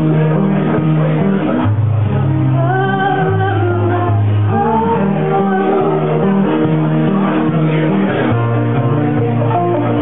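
Live folk-rock song played on strummed acoustic guitar and electric keyboard, with held bass notes changing every second or two and a voice singing the melody.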